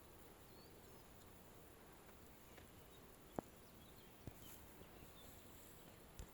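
Faint outdoor nature ambience: a steady low hiss with a few faint, high bird chirps and three soft clicks, the loudest about three and a half seconds in.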